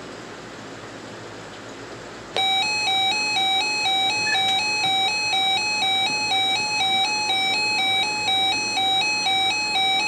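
Faint radio hiss, then an electronic emergency alert tone cuts in abruptly about two seconds in: a loud, buzzy tone flipping between two close pitches about four times a second.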